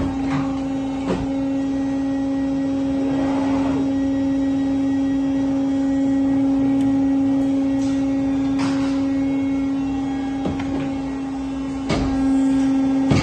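Adast Maxima MS 80 TH paper guillotine running with a steady, even motor hum. A few short clicks and knocks from the machine come through the hum, the strongest near the end.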